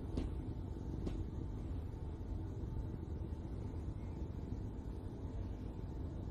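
Domestic cat purring, a steady low rumble, while it is stroked; two faint clicks in the first second.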